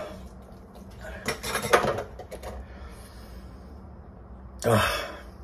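Just-emptied aluminium beer can being handled on a kitchen counter: a quick run of metallic clatters and clicks about a second and a half in, the loudest near two seconds. A short breathy voice sound follows near the end.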